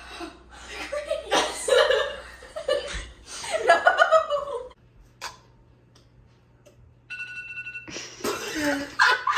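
Laughter and giggling mixed with talk. A brief steady high tone sounds near the end, followed by more voices.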